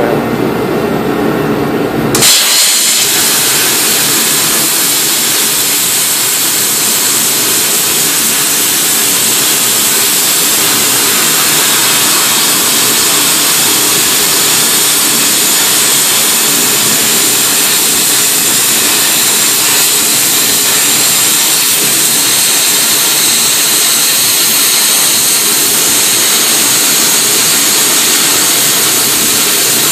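Plasma cutter cutting through metal plate: after about two seconds of a lower hum, the arc strikes and a loud, steady hiss runs on without a break.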